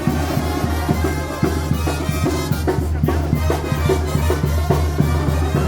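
A Oaxacan wind band (banda) playing dance music, with a steady bass line under the melody and a regular drum beat.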